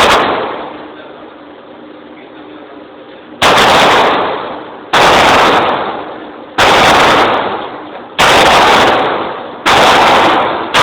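Gunshots at a shooting range: five single shots about a second and a half apart, each loud with a long echoing tail, after the fading echo of a shot just before.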